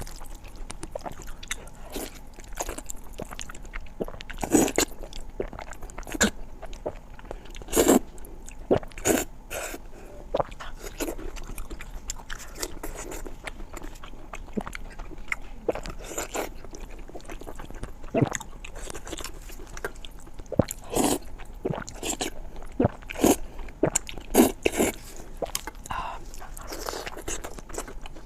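Close-miked eating: biting and chewing food, with irregular wet mouth clicks and smacks and several louder bites.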